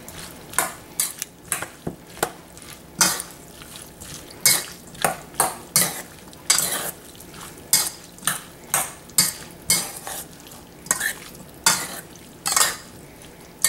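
A spoon stirring a mayonnaise-dressed corn salad in a stainless steel mixing bowl, scraping and clinking against the metal in short, irregular strokes.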